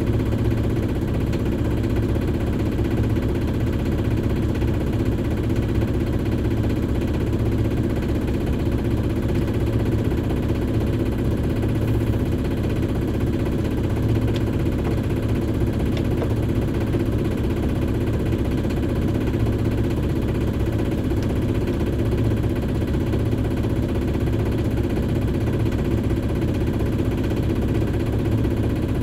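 A Shipman 28 sailboat's auxiliary engine running steadily under way at constant revs, a steady drone with no change in pitch.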